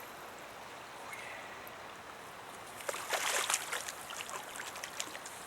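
Creek water running steadily, with a short cluster of sharp splashes and clicks about three seconds in.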